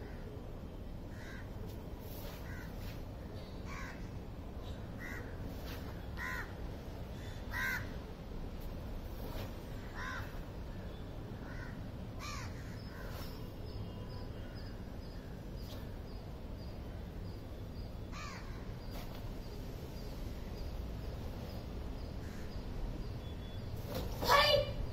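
Crows cawing, a run of calls about once a second for the first ten seconds, then a few scattered ones, over a steady low background hum. Near the end comes one short, loud cry, much louder than the caws.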